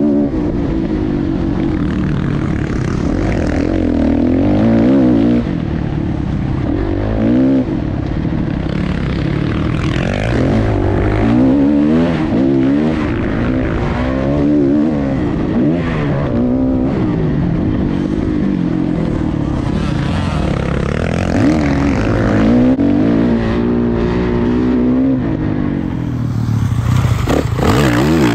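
Motocross dirt bike engine, heard from on board the bike, revving hard and dropping back again and again as the rider accelerates, shifts and slows for jumps and turns.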